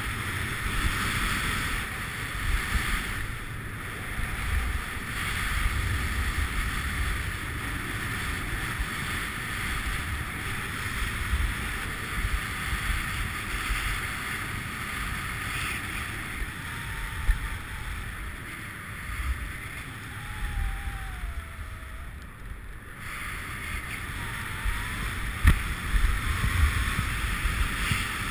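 Skiing down a groomed piste: a steady hiss and scrape of the edges on the snow, with wind rumbling on the camera's microphone.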